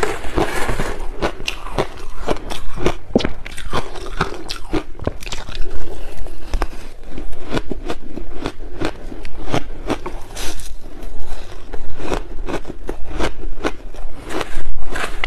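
Close-miked crunching and chewing of frozen passion-fruit ice: rapid sharp cracking bites, one after another, with a metal spoon scraping through shaved ice.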